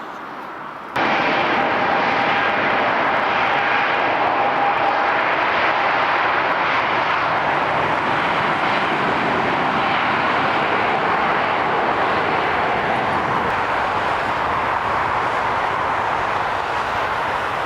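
Rolls-Royce Trent 1000 turbofans of a Boeing 787-9 at takeoff power. The loud jet roar comes in abruptly about a second in and holds steady, with a thin high whine running through it, then eases slightly near the end.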